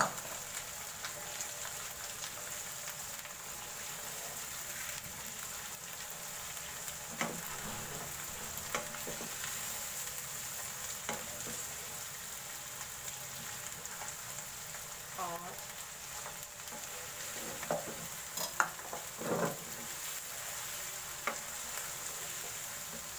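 Mutton pieces and ginger-garlic paste sizzling in hot oil in a non-stick pan, a steady frying hiss, while a wooden spoon stirs them, knocking and scraping against the pan now and then.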